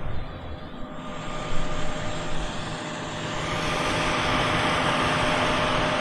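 Farm tractor's diesel engine running with a steady drone and whine over a hiss, growing louder about three and a half seconds in and then holding steady.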